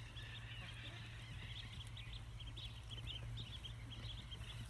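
A brood of three-day-old ducklings peeping, many short high peeps overlapping in a steady stream.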